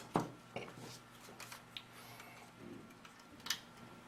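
A few light, scattered clicks and taps of small parts being handled while the body shroud is fitted to the paintball marker.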